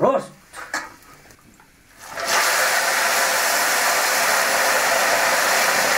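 A few clinks of pots and utensils, then about two seconds in a loud, steady sizzle of fish frying in hot oil starts suddenly.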